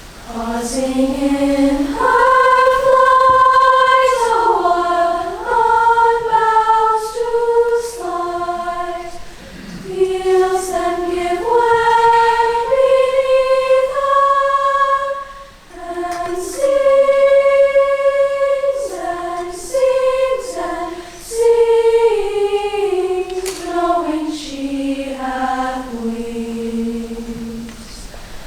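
Treble choir of sopranos and altos singing a five-part round, in long held phrases with short pauses between them.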